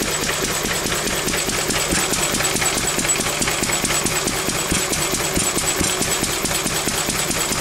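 Old Lister single-cylinder stationary engine running steadily with a rapid, even firing beat, its ignition timing freshly set by ear and running well.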